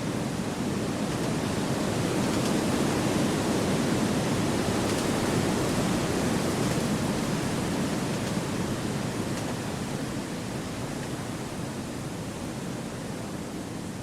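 Wind blowing through forest trees: a steady rushing that swells over the first few seconds and slowly eases toward the end.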